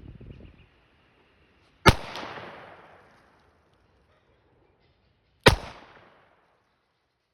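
Two shots from a Taurus 856 .38 Special revolver, about three and a half seconds apart, each a sharp crack that echoes away over about a second.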